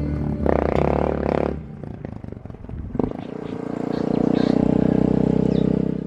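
Suzuki DR650's single-cylinder four-stroke engine running on the move; it drops away after about two seconds, then picks up again and grows steadily louder, with a single knock about three seconds in.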